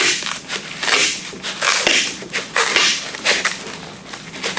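Silver duct tape being pulled off its roll and wound tightly around a pipe, peeling in a series of short, irregular pulls.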